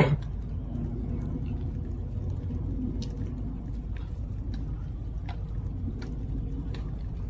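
Steady low outdoor rumble, opened by one sharp knock, with faint short ticks about once a second from a few seconds in.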